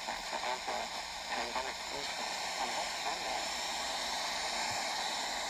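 FM radio static: a steady hiss from a weakly received station, with a man's voice talking faintly under it for about the first half, then the static alone.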